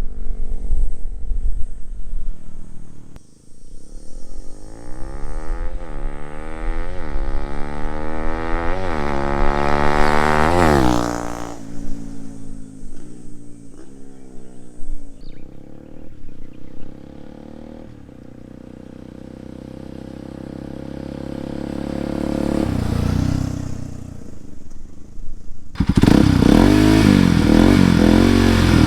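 Bajaj Pulsar NS200 single-cylinder engine through an Akrapovic aftermarket exhaust, pulling up through several gears: the pitch climbs and drops back at each upshift. The engine then eases off and runs quieter and lower, and a sudden louder stretch begins near the end.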